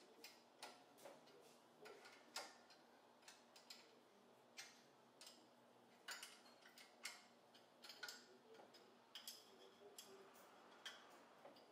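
Faint, irregular metallic clicks and clinks, roughly two a second, from hand tools and hardware being worked at a car's front wheel hub.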